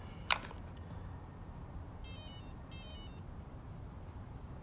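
A plug clicks out near the start, then about two seconds in come two short runs of electronic beeps that step in pitch: a brushless speed control's start-up tones, heard after it is unplugged from the programming card.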